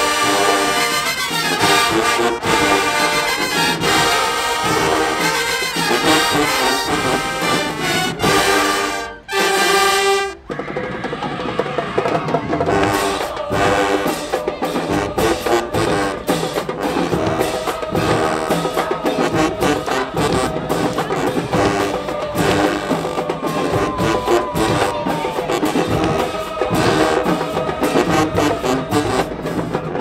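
Marching band playing in the stands: a loud brass section of sousaphones, trumpets and trombones sounding full chords over drums. About a third of the way in the band breaks off for a moment, then comes back in with sharper drum hits under the horns.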